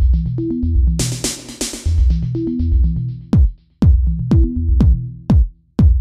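Electronic background music on a drum machine, with a pulsing deep bass line and a cluster of bright cymbal-like hits about a second in. From about three seconds in, a quick falling-pitch drum hit repeats roughly twice a second.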